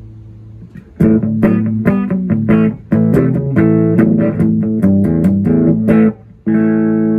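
Electric guitar played through a 1973 Fender Twin Reverb combo amp under a full-power test: a held chord rings quietly, then about a second in come quick picked notes and strummed chords. After a brief break near the end, a loud chord is left ringing.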